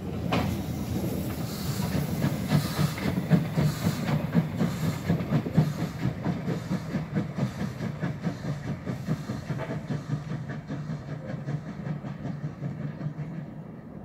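Steam locomotive working away under steam: rhythmic exhaust chuffs over a steady hiss, with the running gear on the rails. It comes up suddenly at the start, is loudest in the first half, and fades gradually as the engine draws away.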